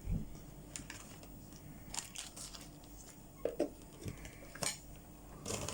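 Small scattered clicks and clinks of dishes and cutlery being handled at a meal table, with some soft crinkly noises, over a faint steady hum.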